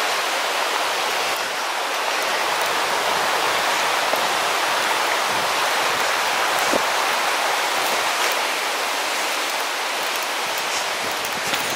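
The River Lyn rushing over rocks and boulders, a steady, even rush of water.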